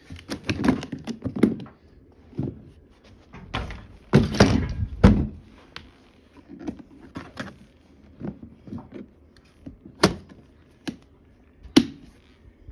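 Irregular knocks, thumps and clatter of household items and furniture being handled and set down, loudest in a cluster about four to five seconds in, with a few sharp single knocks near the end.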